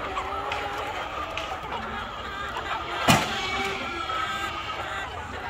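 A large flock of chickens clucking together in a continuous din of many short calls, with one sharp knock about three seconds in.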